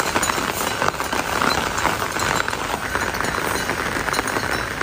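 Steady rain pattering close by on an umbrella, a dense, even crackle of drops.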